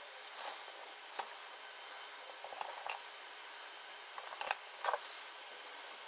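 Scattered light clicks and knocks from hands handling wires and small hardware at a terminal block, over a steady faint hiss.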